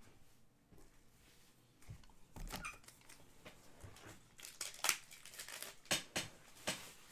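Trading-card packaging being handled: plastic and cardboard crinkling and rustling, with a louder rustle about two and a half seconds in and several sharp clicks in the second half.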